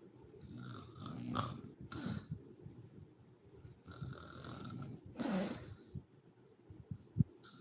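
A sleeping woman snoring, several irregular snoring breaths with the strongest about five seconds in. A short sharp pop comes near the end.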